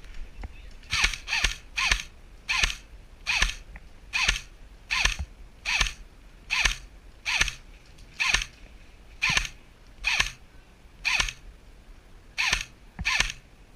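Airsoft replica firing single shots one after another, about seventeen sharp cracks roughly one every second, each with a short falling tail.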